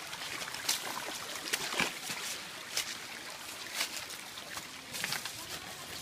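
Footsteps crunching on dry leaves and loose stones, in irregular crunches, over the faint steady trickle of a shallow stream.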